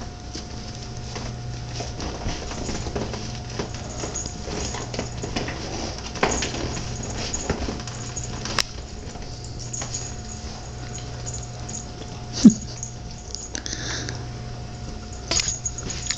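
A basset hound and a cat play-fighting on a blanket-covered couch: scuffling and rustling of blankets with small dog noises, and one short, loud, low dog vocalization about twelve seconds in.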